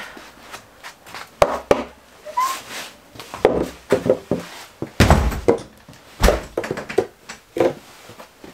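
Snow shovel scraping and knocking on a concrete floor as snow is cleared from a doorway, with a string of sharp knocks and a few heavy thuds about five and six seconds in, one of them likely the door shutting.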